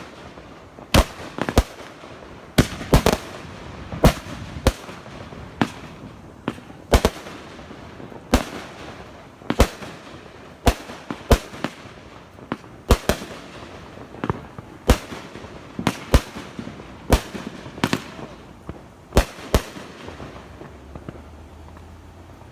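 Fireworks going off in a rapid series of sharp bangs, roughly one a second at uneven spacing, some in quick doubles. The bangs stop about twenty seconds in.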